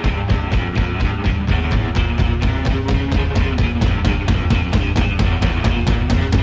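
Rock music with a driving drum beat, kicking in abruptly at the start.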